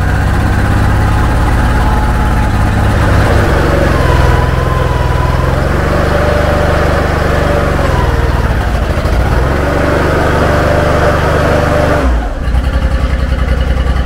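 Kubota DF752 three-cylinder gas engine of a Genie scissor lift running just after a cold start on choke, working harder as the hydraulic drive is engaged. A whine wavers in pitch over the middle stretch and drops away about twelve seconds in. The machine drives but won't yet lift, its hydraulics still sluggish in the cold.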